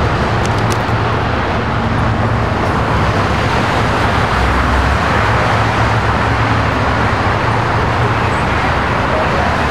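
Freeway traffic noise: vehicles passing on the lanes below, a steady rush of tyres and engines with a low hum underneath.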